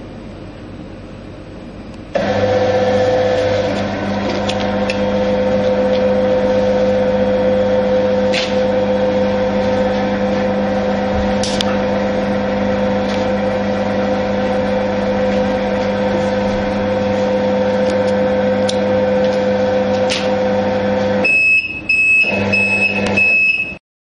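QMAX NF-1 needle detector's conveyor belt motor starts about two seconds in and runs with a steady hum. Near the end the machine gives a quick series of short high electronic beeps, and the motor stops.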